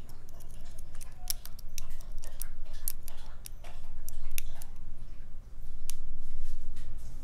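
Lock pick working the pins of a padlock's pin-tumbler keyway under tension: irregular light metallic clicks and scrapes.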